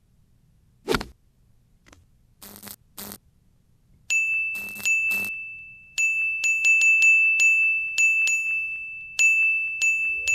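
Sound-design effects: a falling swish about a second in and two short noisy bursts, then a string of high pinging dings on one pitch, like phone notification pings, coming faster and piling up from about four seconds in.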